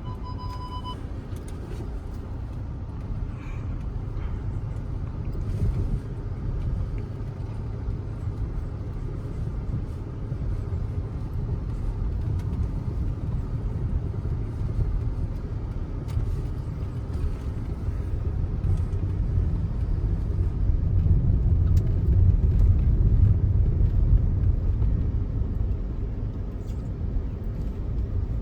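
Audi Q5 driving, a steady low rumble of engine and tyres that swells louder about two-thirds of the way through. A short steady tone stops about a second in.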